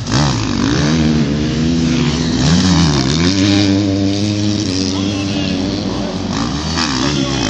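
Motocross bikes racing by, engines revving hard with the pitch rising and falling through throttle and gear changes, one bike loudest and nearest.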